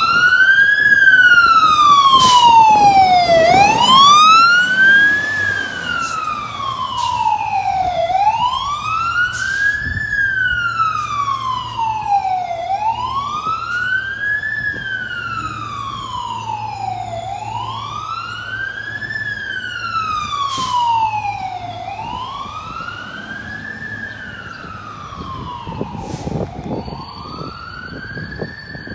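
Fire engine siren on a 2020 Pierce Saber pumper sounding a slow wail, each cycle climbing quickly in pitch and falling away more slowly, repeating about every four and a half seconds. It is loudest in the first few seconds and fades steadily as the engine drives away.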